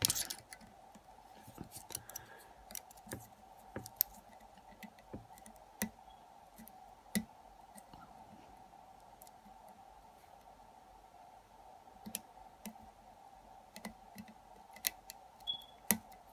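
Lock pick and tension wrench working a pin-tumbler lock: irregular light metallic clicks and small scrapes as the pins are picked, with a sharp click right at the start and a quieter stretch midway. A faint steady hum runs underneath.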